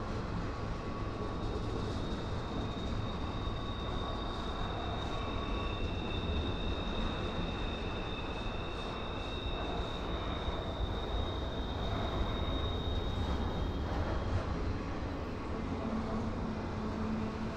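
Double-stack intermodal container cars of a freight train rolling past with a steady rumble of wheels on rail. A thin high-pitched squeal rises over it for several seconds in the middle.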